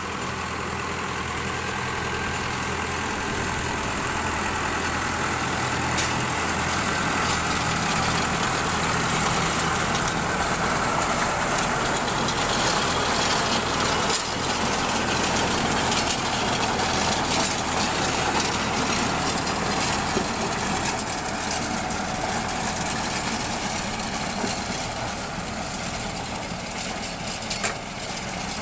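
Tractor engine running steadily while it powers a round straw baler, with a few sharp clicks from the machinery.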